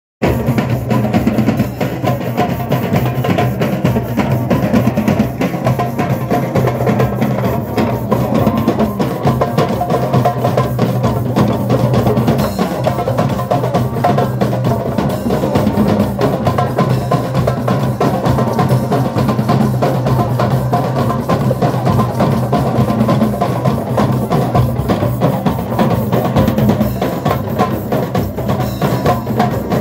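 Drum circle: many djembes and other hand drums, together with a drum kit, playing one dense, steady, continuous rhythm.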